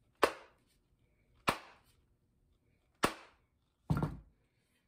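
Four sharp knocks about a second apart, each ringing off briefly; the last one is deeper and fuller.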